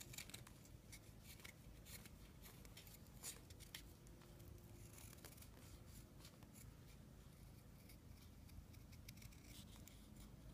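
Faint, scattered scraping and small clicks of a Böker Plus Bullpup pocket knife blade cutting into wood, a couple of slightly louder cuts about three seconds in.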